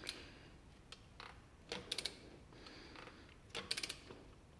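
Ratchet head of a click-type torque wrench ticking in short rapid runs as it is swung back between strokes on a square-taper crank bolt, once just under two seconds in and again near the end. The wrench has not yet reached its 40 Nm setting, so its break-over click is not heard.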